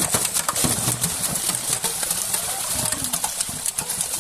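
Many large fish thrashing and splashing in a net crowded at the water's surface: a dense, irregular run of splashes and slaps.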